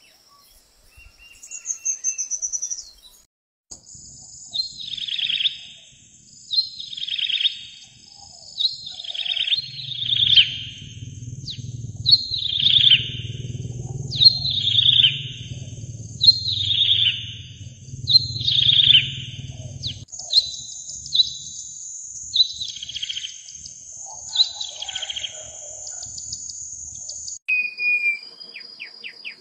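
A wild songbird singing one phrase over and over, each a quick falling trill, about every one and a half seconds, over a steady high tone. The recording changes abruptly a few times, like spliced clips.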